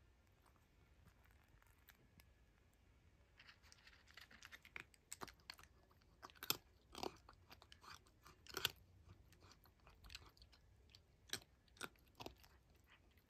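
A cat crunching dry kibble: quiet at first, then a run of irregular crisp crunches starting a few seconds in.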